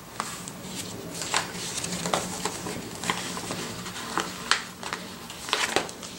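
Paper and sticker sheets being handled: light rustling with scattered small clicks and crackles, over a faint steady low hum.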